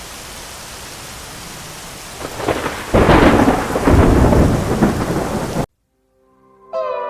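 Steady rain hiss, then a loud rumble of thunder rising in about two and a half seconds in and lasting a few seconds before cutting off abruptly. Music begins just before the end.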